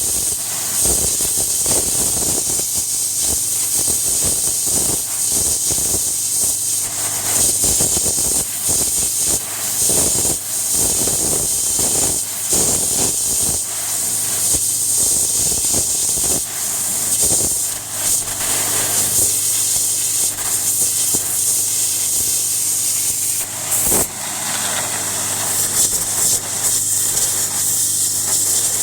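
A 3000 psi Landa pressure washer spraying, its high-pressure water jet making a loud, steady hiss over the steady hum of its motor and pump, with irregular crackling spatter.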